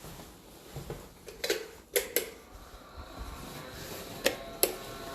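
A handful of sharp clicks and knocks, two close together about two seconds in and two more near the end, from the fittings of a built-in wardrobe being handled.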